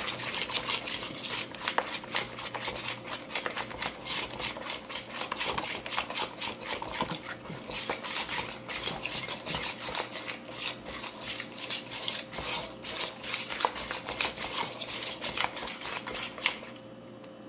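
Wire whisk beating a thick flour-and-water batter in a stainless steel mixing bowl: rapid clicking and scraping of the wires against the metal, which stops shortly before the end.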